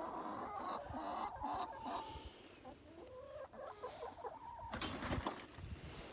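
Chickens clucking in short, low calls, with a brief scuffing noise about five seconds in.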